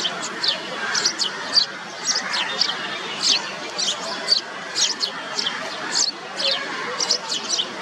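A group of house sparrows chirping: many short, sharp chirps, several a second and overlapping, over a steady background hiss of ambient noise.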